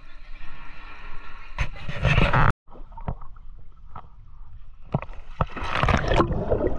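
Swimming-pool water sloshing and splashing close to the microphone, with scattered knocks and a louder rush of splashing a little before the end as the camera goes under the surface.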